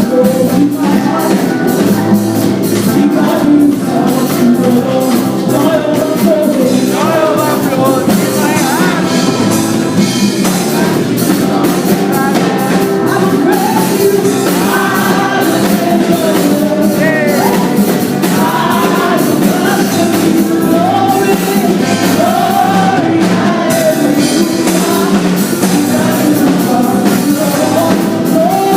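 Live worship band music: a singer's voice over a full band with drums, loud and steady.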